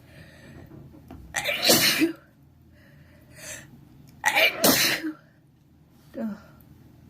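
A person sneezing hard twice, about three seconds apart, with shorter breathy sounds between and after the sneezes.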